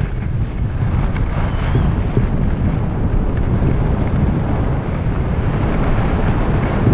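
Wind rushing over the microphone of a camera moving fast downhill on a ski slope: a steady, loud, low rumbling buffet, with the hiss of snow under the rider carrying it.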